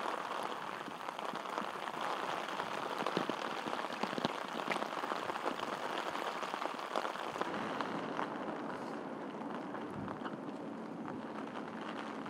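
Steady rain pattering on surfaces, an even hiss dotted with many small drop ticks.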